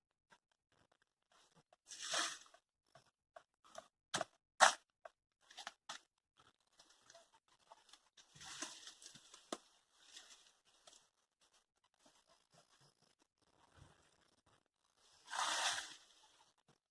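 Dry straw and brush being handled and broken: short bursts of crunching and tearing three times, with a couple of sharp snaps.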